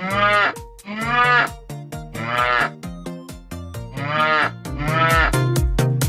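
Recorded cow mooing from an electronic toy piano, five short moos, over a children's backing tune with a steady beat.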